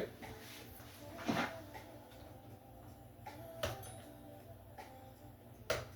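Faint handling sounds of printer parts being moved: a few light knocks and one sharper click near the end, over a low steady hum.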